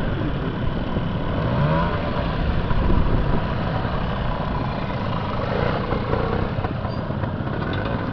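Classic trials motorcycle engine running at low revs, with a few short rises in revs as the rider works the throttle through the section.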